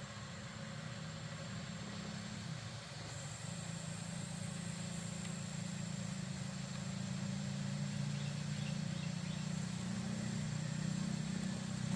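A motor engine running steadily, growing gradually louder toward the end.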